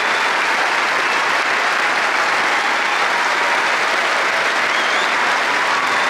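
Large stadium crowd applauding steadily, a dense, unbroken wash of clapping from thousands of spectators, heard from among them in the stands.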